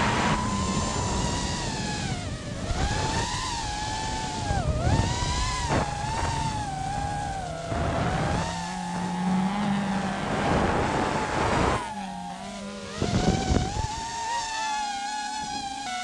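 FPV racing drone's motors whining, the pitch rising and falling with the throttle, over a rally car's engine and gravel noise. There are several short rushes of noise, the loudest about five seconds in and again near the end.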